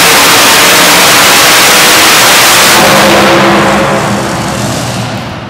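A multi-engine modified pulling tractor's supercharged engines at full throttle under load, very loud. About three seconds in the throttle comes off and the engines wind down as the tractor stops at the end of its pull.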